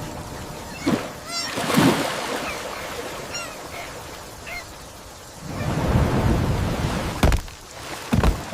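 Storm-and-river sound effects: rushing water and rain with a deep rumble swelling up about six seconds in and several sharp thumps. A few short, wavering high-pitched cries sound early on.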